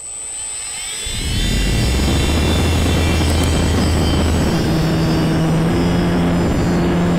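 Electric motor and propeller of an Easy Glider Pro RC motor glider running up to full power: a high whine rising in pitch, then a loud steady drone with heavy wind rush on the onboard camera's microphone from about a second in as the glider is hand-launched.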